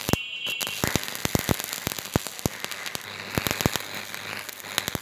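Stick-welding arc on a galvanized-to-mild-steel pipe joint, striking suddenly at the start and then crackling steadily with dense, sharp pops.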